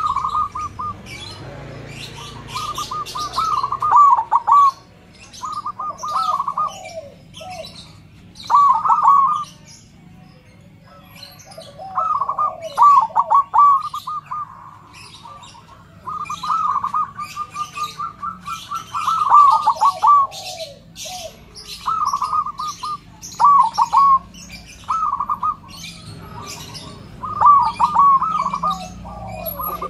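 Zebra dove (perkutut) cooing in short rolling, stuttering phrases, repeated every couple of seconds. Other small birds chirp high and thin throughout.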